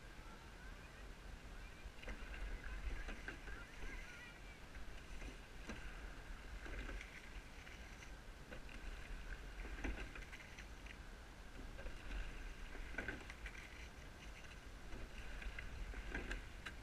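Racing single scull being rowed, with a stroke about every three seconds: oars and water sounding faintly with each stroke over a steady high-pitched background sound.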